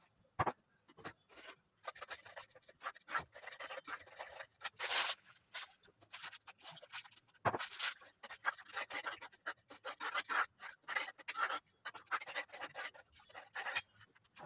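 Rapid, irregular scratching and rubbing: many short scrapes and snaps in quick succession, with a few louder strokes.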